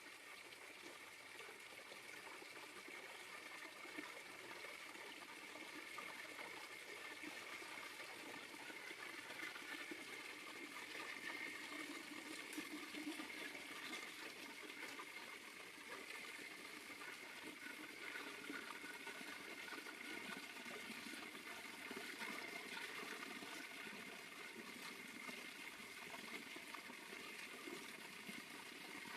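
Water running steadily, with a faint, steady high tone over it.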